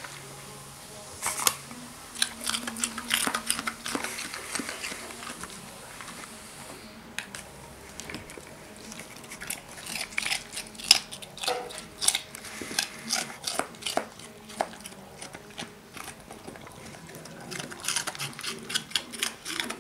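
Dalmatian chewing chunks of raw carrot, a run of sharp, crisp crunches with a short lull about five seconds in.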